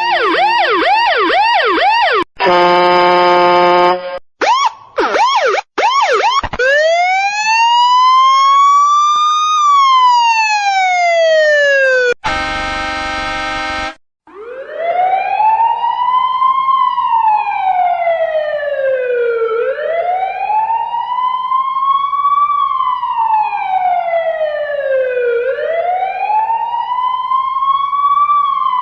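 A run of siren and horn sound effects. First a fast warbling siren, then a short steady horn blast, quick yelping sweeps, and one slow rising-and-falling wail. About halfway comes another steady horn blast, then a wail siren that rises and falls about every three seconds.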